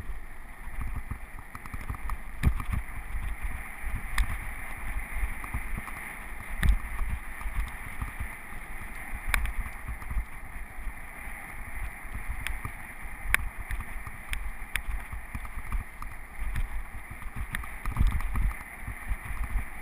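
Mountain bike rolling over a rough, broken gravel track: a steady low rumble of tyres and wind on the camera, with irregular sharp clicks and rattles as the bike jolts over bumps.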